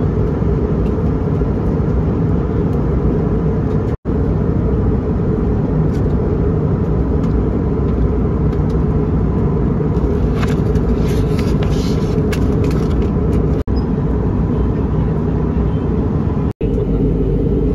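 Steady cabin noise of an Airbus A320 in cruise, a constant low rush of airflow and engines. It drops out briefly three times, and a few faint clicks come about ten to thirteen seconds in.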